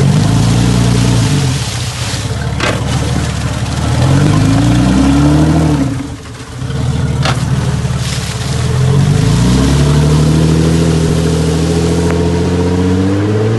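Outboard motor running in a water test tank with its propeller churning the water, revved up and down several times. The revs climb about a second in and fall back, climb again around four seconds, drop briefly near six seconds, then rise and hold high.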